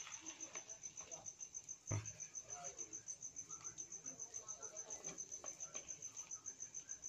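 A cricket chirping steadily, a high even pulse about seven times a second. A steel ladle knocks once against the aluminium pan about two seconds in, with faint scraping as it stirs the thick rava kichadi.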